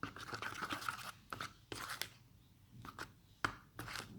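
Glue being stirred in a bowl: a utensil scraping and clicking against the bowl in short, irregular strokes, with a sharper tap about three and a half seconds in.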